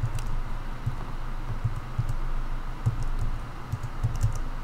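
Scattered clicks of computer keys, a few irregular taps over a steady low hum.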